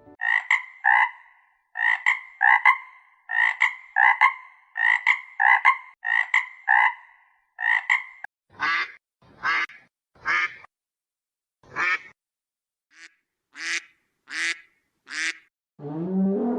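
An animal calling repeatedly: short calls in quick pairs for about eight seconds, then single, raspier calls spaced further apart. Near the end a lower, drawn-out sound begins.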